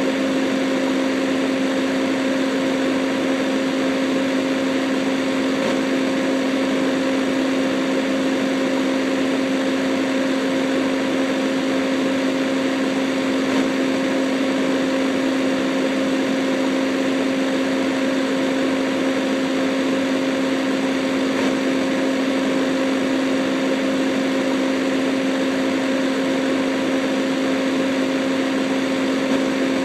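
A steady low electronic hum with a second, higher tone an octave above it, over a constant hiss of static, unchanging throughout.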